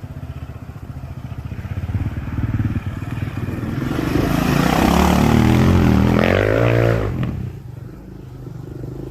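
Rebuilt 2001 Yamaha Raptor 660 ATV's single-cylinder four-stroke engine ticking over, then revved up from about two seconds in, loudest around five to seven seconds, before the revs fall away back to idle near the end.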